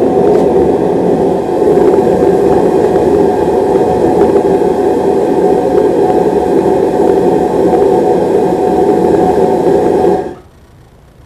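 Burner of a metal-melting furnace running with a loud, steady rushing noise, shut off about ten seconds in.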